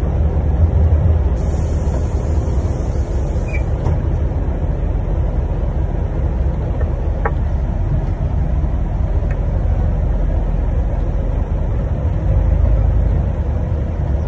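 Steady low rumble of a moving vehicle's engine and road noise.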